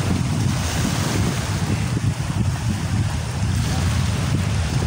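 Wind blowing across the microphone over the steady wash of small sea waves in the shallows.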